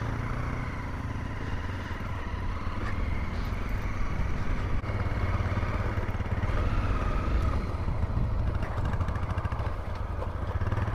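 Honda CRF250L's single-cylinder four-stroke engine running steadily while the bike rides along a dirt track.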